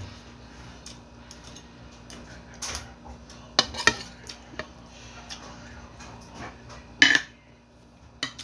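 Metal spoon clinking and scraping against a ceramic plate of rice: several short, sharp clinks, the loudest about seven seconds in.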